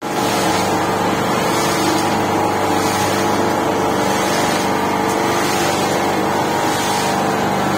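An engine or motor running steadily, with an even hum and rumble that does not change.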